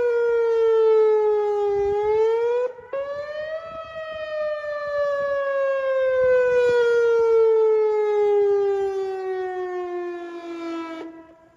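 Whelen WPS 2906 electronic outdoor warning siren sounding the attack signal: a wailing tone that falls in pitch, rises again briefly about two seconds in, then glides slowly down and stops shortly before the end.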